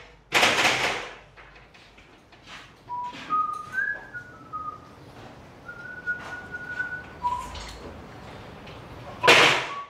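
A person whistling a few short high notes that step up and down, with pauses between them. A loud bang comes just after the start and another near the end.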